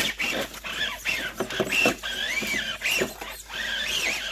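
Electric motor of a radio-controlled crawler truck whining, its pitch wavering up and down as the throttle changes, with short splashes and knocks as it drives through a stream.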